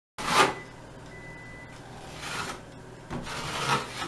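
Putty knife scraping across wet joint compound on a plaster wall, about three short smoothing strokes.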